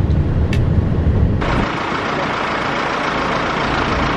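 Steady low rumble of a moving road vehicle, heard from inside as it drives along. About one and a half seconds in it cuts abruptly to a steady hiss.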